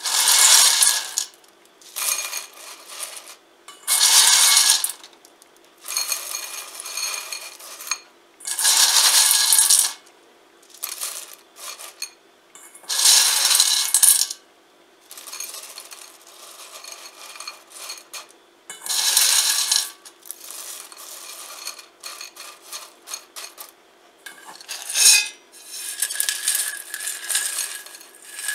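Handfuls of dried garlic slices rattling and clinking as they are scooped from a stainless steel bowl and dropped into a glass bowl, in loud bursts every few seconds with quieter rustling between. Near the end the rest of the slices are poured in from the metal bowl.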